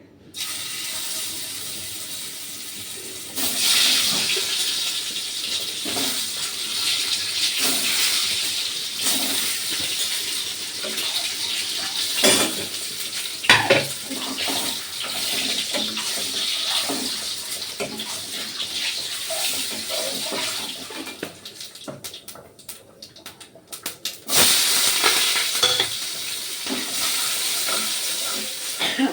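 Eggs sizzling as they fry in hot oil in a kadhai; the sizzle jumps louder a few seconds in, fades for a while later and comes back loud near the end. A few sharp knocks, around the middle, sound like the utensil against the pan.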